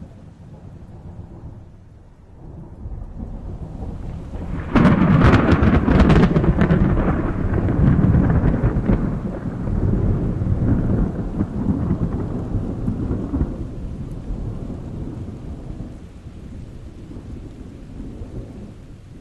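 A thunderclap. A low rumble builds, then a sharp crackling crack comes about five seconds in, followed by a long rolling rumble that slowly fades over the next ten seconds or so.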